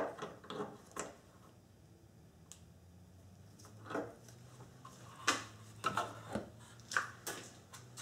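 Plastic front grille and its retaining clips on a '97 Nissan Maxima being pried and worked loose by hand with a tool. A string of short plastic clicks and knocks, busiest in the second half.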